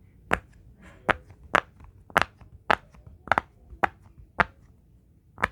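Silicone push-pop fidget toy, its bubbles pressed one after another: about ten sharp pops, roughly two a second.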